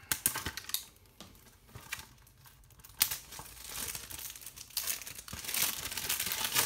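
Plastic shrink-wrap on a Blu-ray case being cut and pulled off: crinkling and tearing, with a sharp click about three seconds in and louder, denser crinkling near the end.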